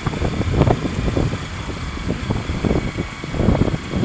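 Motorcycle engine running while riding on a bumpy dirt road, with irregular low gusts of wind buffeting the microphone.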